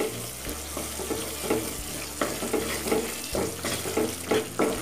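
Wooden spatula stirring thick tamarind paste (puli kaachal) that is cooking in oil in a nonstick kadai: repeated scraping strokes over a steady sizzle. The oil has risen to the surface, the sign that the paste has reached its final stage.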